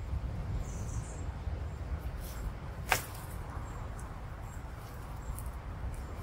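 Aldabra giant tortoises eating grass and leaves: small scattered bites and tearing. One sharp click about three seconds in is the loudest sound.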